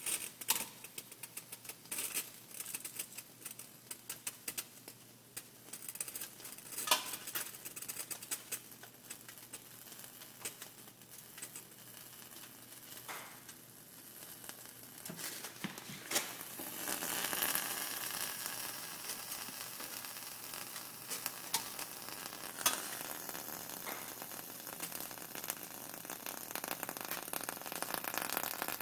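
A Maserati, just after being driven, giving off the strange sound that its owner noticed: irregular crackling and ticking clicks, joined about halfway through by a steady high hiss.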